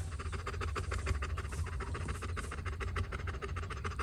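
Mother livestock guardian dog panting fast and evenly close by, with a low steady rumble underneath.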